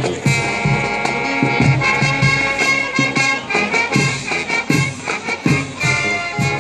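Marching band playing: brass holds stacked chords over regular drum strikes.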